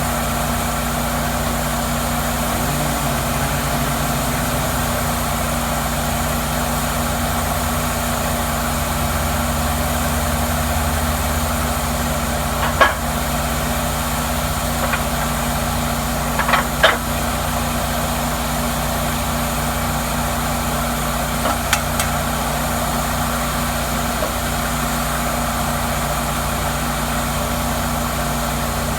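Cook's MP-32 sawmill running steadily with an even mechanical hum, broken by a few sharp clicks or knocks: one about 13 seconds in, two close together about 17 seconds in, and one about 22 seconds in.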